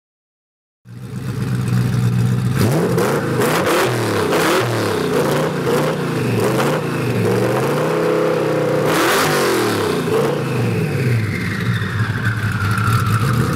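Ford GT's supercharged 5.4-litre V8 comes in about a second in at idle. It is then blipped repeatedly in quick revs up and down until about ten seconds in, and settles back to a steady idle.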